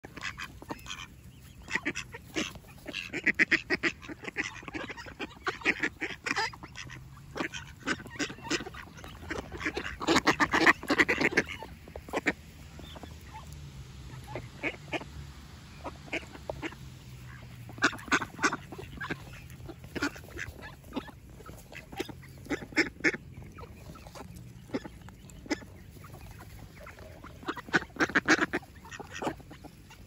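Mallard ducks quacking in a flock, in runs of rapid calls that come and go, the loudest run about ten seconds in.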